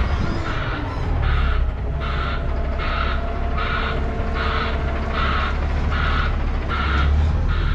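A vehicle reversing alarm beeping steadily, about three beeps every two seconds, over the low running of a truck's diesel engine.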